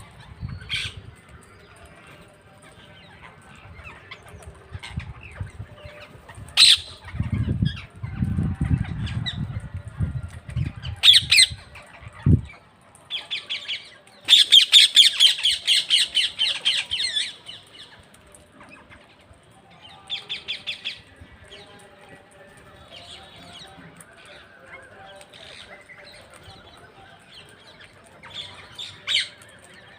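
Parrots squawking in harsh, repeated calls, with one long rapid run of squawks about halfway through and shorter bouts before and after. A low rumble runs for a few seconds before it, ending in a sharp knock.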